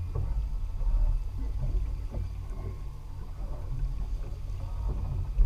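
Low, uneven wind rumble buffeting the microphone above a small fishing boat at sea, with a brief bump near the end.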